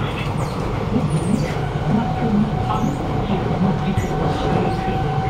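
Cabin running noise of a Kawasaki Nippon Sharyo C751B metro train under way: a steady rumble of wheels on rail, with a steady mid-pitched whine running through it.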